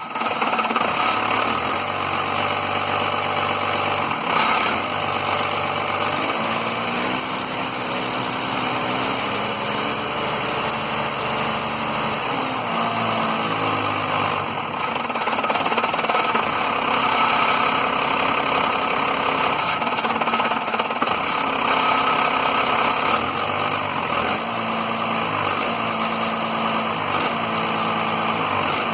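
1993 Dodge Cummins 5.9-litre 12-valve inline-six diesel idling roughly. Its speed wavers up and down now and then as it keeps cutting out periodically, which the owner suspects is a failing lift pump starving it of fuel.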